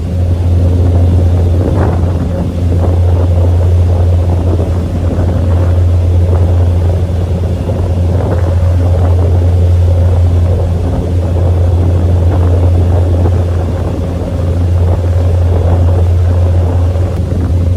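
Engine of a sightseeing tour boat running steadily under way, a deep, even drone with a low hum.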